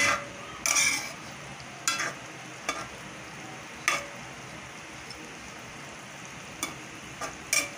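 Squid adobo simmering and sizzling in a metal wok while it boils down to thicken the sauce. A metal spoon stirs it, scraping and clicking against the wok now and then, about six times.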